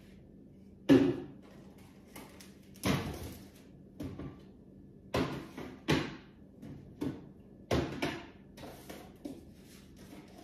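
Groceries being put away in a refrigerator: a string of about ten knocks and clunks from the fridge door and packages set on its shelves, the loudest a sharp thump about a second in.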